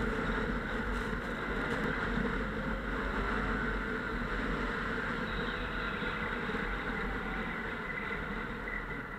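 Snowmobile engine running steadily, its level dropping off near the end.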